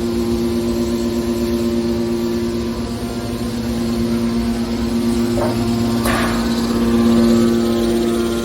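Hydraulic scrap metal baler running: a steady machine hum with two held tones, with two brief noisy sounds of metal or hydraulic action about five and a half and six seconds in, and the hum swelling slightly soon after.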